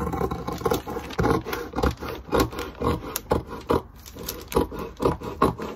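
Orange-handled scissors cutting through fabric with a paper pattern on top: a run of uneven snips and scrapes, about two or three a second.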